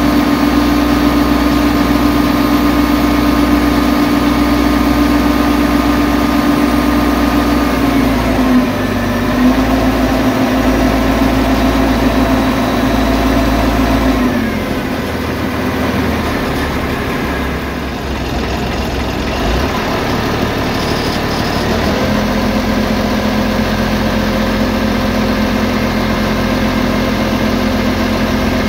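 Boat engine running steadily. About halfway through it eases off and drops in pitch, then picks up again a few seconds before the end.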